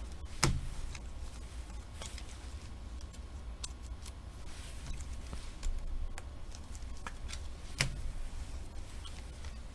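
Trading cards being slid into plastic sleeves and handled on a table: scattered small clicks and rustles, with two sharper taps about half a second in and about eight seconds in. A steady low hum runs underneath.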